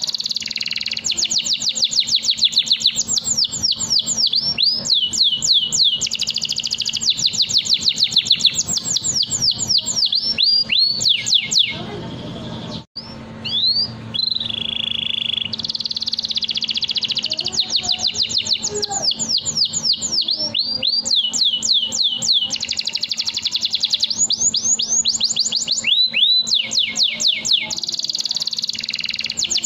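Domestic canary singing a long, unbroken song of rapid trills: runs of fast repeated high notes, each run switching to a new roll every second or two, with a brief break a little before halfway.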